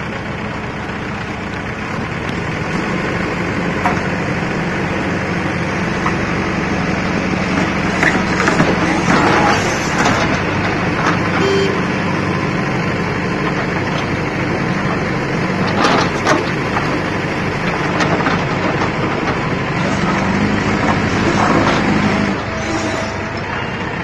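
Diesel engines of a backhoe loader and a tracked excavator running steadily under load, with a few sharp metallic knocks as the machines work.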